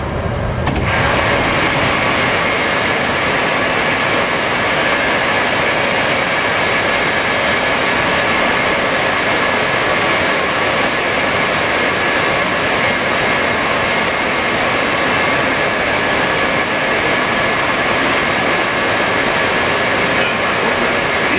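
Moscow Metro 81-775/776/777 train standing at a station with its doors open, about a second in the low running rumble gives way to a loud, steady hiss with a faint high whine from the train's equipment and ventilation. A few faint clicks come near the end.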